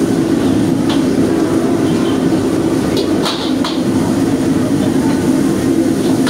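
Steady, loud rumble of a commercial wok station's gas burner and extraction running, with a metal ladle clinking against the wok once about a second in and three times around three seconds in.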